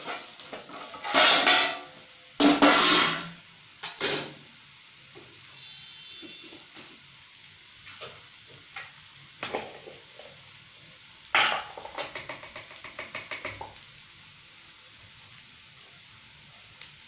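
Ponnaganti (sessile joyweed) greens sizzling steadily in a frying pan. In the first four seconds there are three loud clanks and scrapes as the steel lid is lifted off the pan. At about eleven seconds a ladle starts stirring, with quick scraping clicks for a couple of seconds.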